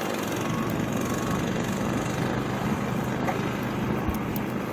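An engine running steadily, a low even hum under a constant hiss.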